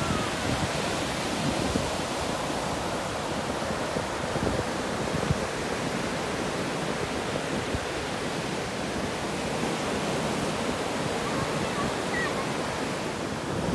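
Ocean surf breaking and washing up onto a sandy beach: a steady rushing of waves.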